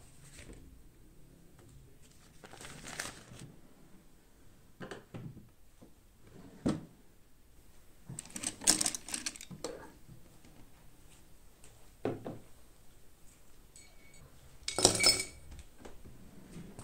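Objects handled and set down on a desk: about half a dozen separate rustles, knocks and clinks with quiet between them. The loudest are a clatter about nine seconds in and a ringing clink near the end.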